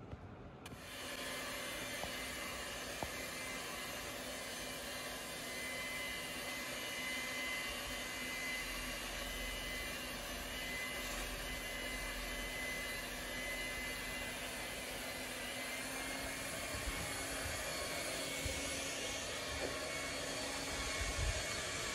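Steady whirring of a motor-driven blower, starting abruptly about a second in, with a low hum and a faint high whine; a few low thumps near the end.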